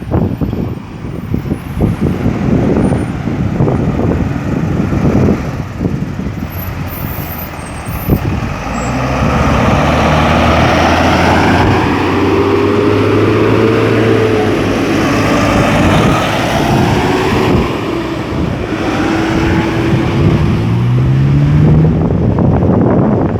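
Road traffic going round a busy roundabout: vehicles pass with tyre hiss and engine hum, and one engine climbs in pitch as it accelerates near the end. Wind buffets the microphone in the first several seconds.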